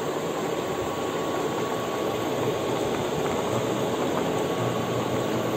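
Pot of pork rib broth with bok choy boiling, a steady bubbling hiss.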